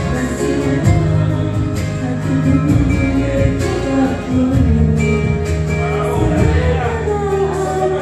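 A woman singing a melody into a handheld microphone over instrumental accompaniment with a steady beat.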